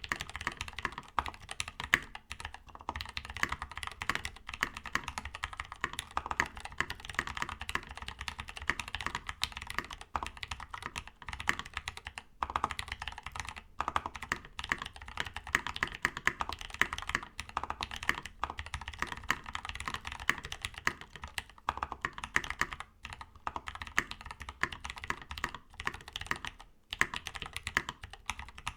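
Fast, continuous typing on a Freebird60 mechanical keyboard with factory-lubed Gateron CAP V2 Brown tactile switches, a brass plate without plate foam, and PBT keycaps: a dense run of keystrokes with a few brief pauses.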